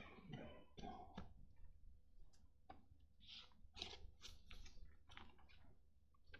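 Near silence, with faint scattered clicks and a few soft rustles picked up by the lectern microphone.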